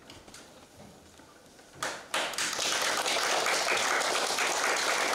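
A few faint scattered taps, then about two seconds in an audience starts applauding, and the applause carries on steadily.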